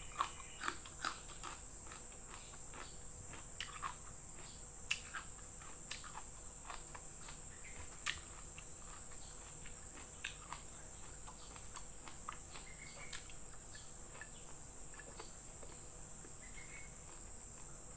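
Chewing and smacking sounds of eating fried chicken liver and noodles by hand: scattered short wet clicks of the lips and mouth, more often in the first half. Under them runs a steady, high, fluttering chirr.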